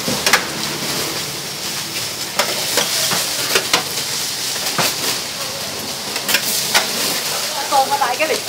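Noodles frying on a hot flat-top steel griddle, a steady sizzling hiss, while a metal spatula scrapes and clacks against the griddle surface as the noodles are tossed, giving sharp scraping clicks here and there.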